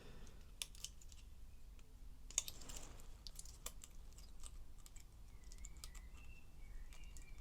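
Faint, scattered light clicks of a feeler gauge's steel blades being handled and tried under a valve tappet while the valve clearance is checked.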